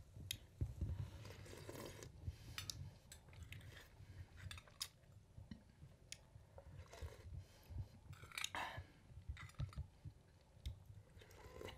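A man eating from a glass jar: a metal spoon clinking and scraping against the glass, with chewing, in a quiet scatter of small irregular clicks.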